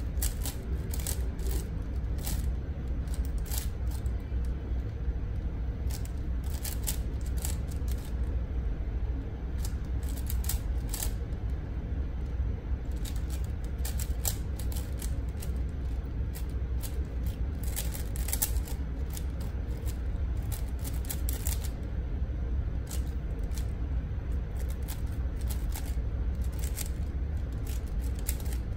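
A 5x5 Rubik's cube being turned rapidly by hand: irregular runs of quick plastic clicks and clacks as its layers snap round.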